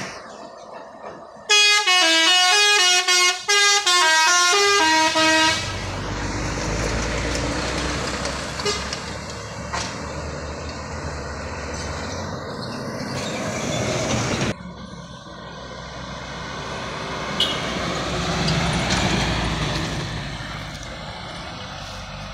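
A bus's multi-tone musical 'telolet' horn plays a short tune of stepped notes for about four seconds. Then the bus engine runs loudly as it passes. Later, heavy truck engines pull through the bend, swelling louder near the end.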